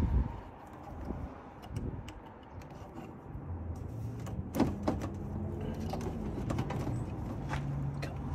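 Hands working the rubber intake tube off the front of an M62 supercharger: a thump at the start, then scattered clicks and knocks of rubber and plastic being twisted and pulled. A low steady hum comes in about halfway through.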